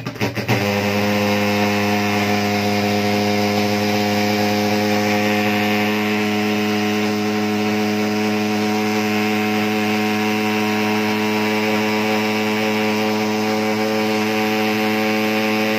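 Maruti pump-start thermal fogging machine's pulse-jet engine catching about half a second in and then running with a loud, steady drone at one even pitch.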